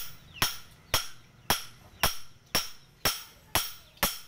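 Hand hammer striking a steel kitchen-knife blade held with tongs on a steel-post anvil during forging: a steady run of about two blows a second, each with a short metallic ring.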